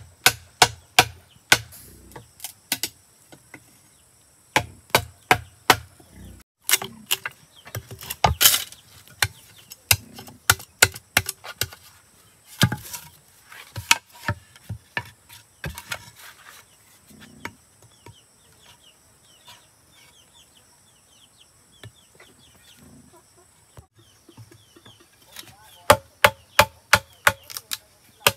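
Runs of quick chopping strokes with a blade, about three a second, broken by pauses and a quieter stretch in the middle. Chickens cluck faintly in the background.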